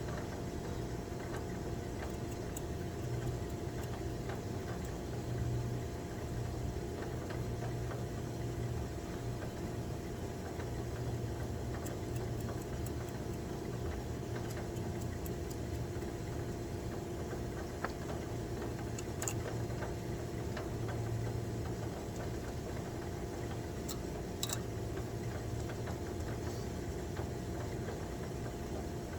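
Steady machine hum with a low drone and a thin steady whine, with scattered light clicks and ticks over it.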